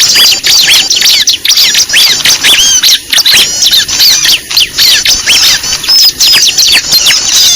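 Many small birds chattering noisily together: a dense, loud stream of rapid, overlapping high chirps and squeaky calls. It is a bird-trapping lure recording of a noisy flock, played to draw small birds in.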